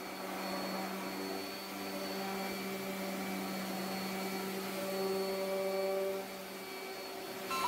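DeWalt random orbital sander running steadily, its pad sanding the top of a wooden box flush, with a motor hum and whine. It gets a little louder for about a second around five seconds in, then eases off.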